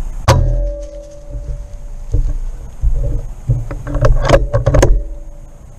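A series of sharp knocks and clatters, the first a single sharp crack about a third of a second in that leaves a short ringing tone, then a quick cluster of knocks in the last two seconds, over a low rumble.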